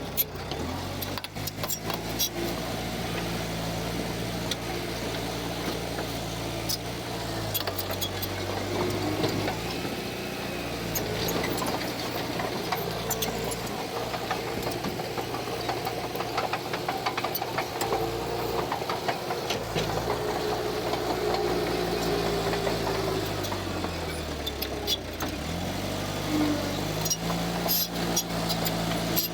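Heavy diesel engine of an earthmoving machine at work. Its engine speed drops about eight seconds in, rises again about twenty seconds in, then dips and climbs once more near the end, with scattered clanks and rattles throughout.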